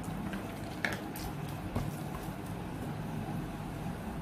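Hands mashing soft cooked aubergine, tomato and potato in a plastic bowl, with a few light clicks, over a steady low background hum.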